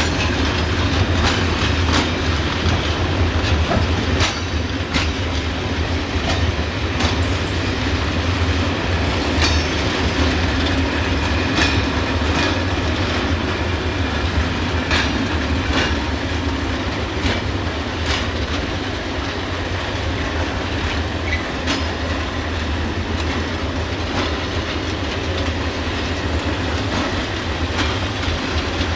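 Freight train of Falls-type hopper wagons rolling slowly past, steel wheels clicking and knocking over the rail joints. Brief high-pitched squeals sound a few seconds in.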